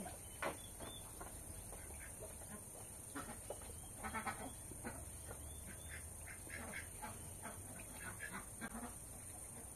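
Farm animals calling on and off: short scattered calls, busiest about four seconds in, with a short sharp sound about half a second in.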